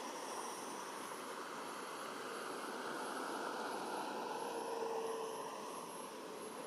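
Steady outdoor background rumble like distant traffic, swelling a little about four to five seconds in. A faint high chirp repeats about every two-thirds of a second.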